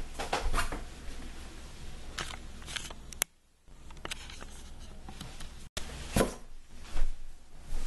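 Scattered knocks, taps and scrapes from wooden drawer panels being handled on a carpeted floor, the loudest knocks about six and seven seconds in. The sound drops out briefly about three seconds in.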